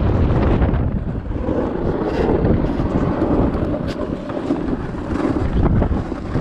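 Wind buffeting the microphone on a moving dog sled, over the steady hiss and scrape of the sled gliding across snow and ice, with scattered brief knocks and scrapes.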